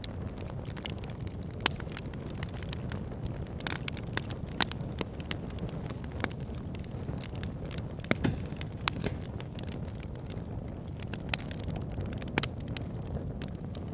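Open fire burning, with irregular sharp crackles and pops over a steady low rush.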